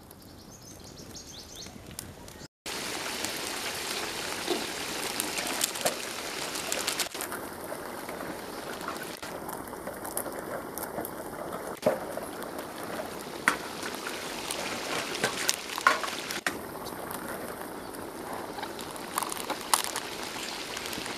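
Chicken pieces sizzling in a large pot, a steady hiss with scattered pops and crackles. It starts quieter, then comes in louder after a brief dropout about two and a half seconds in.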